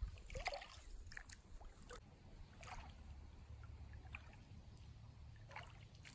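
Bare feet splashing through shallow creek water, one step about every second, fading as the wader moves away.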